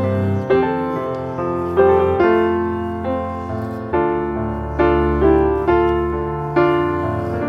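Background piano music at a gentle, even pace: notes and chords struck one after another, each fading before the next.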